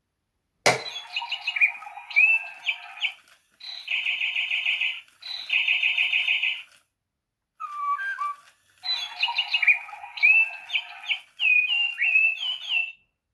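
Electronic toy bird playing recorded birdsong through its small speaker: chirps, whistled notes and fast buzzy trills in several bursts with short pauses. It starts with a sharp click.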